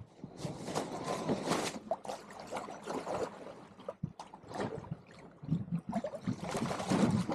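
Water splashing and rushing along the hull of a sailboat under way, in irregular surges.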